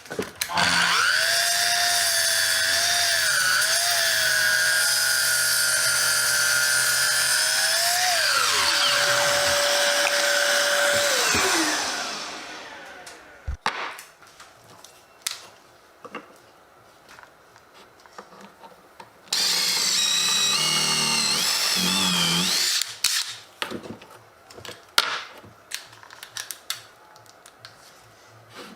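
Small electric power tool motor running at a steady high whine for about eight seconds, then spinning down. After a string of light knocks and clicks it runs again for about three seconds, its pitch wavering under load, followed by more clicks and knocks.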